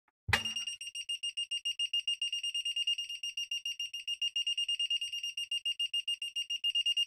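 Brymen BM789 multimeter's beeper in non-contact voltage (EF) mode, giving a rapid, even train of high-pitched beeps that starts about a third of a second in. The detector is reacting to a hand waved near it, a sign of how sensitive it is to interference rather than of any real voltage.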